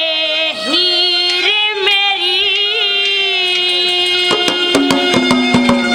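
A boy's voice singing a Haryanvi ragni in long, wavering held notes over a steady instrumental drone. Drum strokes come in quickly from about four seconds in.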